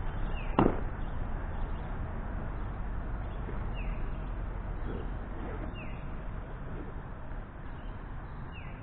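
A bird repeating a short falling call about every two seconds over steady background noise, with one sharp knock about half a second in.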